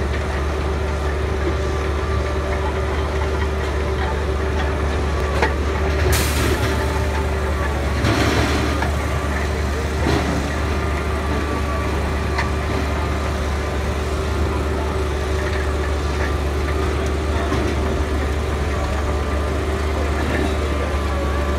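ROPA sugar beet cleaner-loader running steadily, its diesel engine and conveyors droning as it loads beets into a truck. A short hiss comes about six seconds in.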